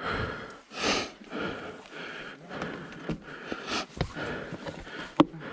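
A person breathing heavily, out of breath after exertion, with a couple of loud breaths about three seconds apart. Two sharp clicks come in the second half.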